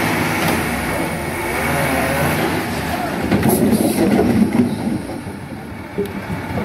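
Diesel engine of a loaded Tata SE 1613 lorry running as the truck drives slowly forward, louder from about three seconds in, then easing off near the end.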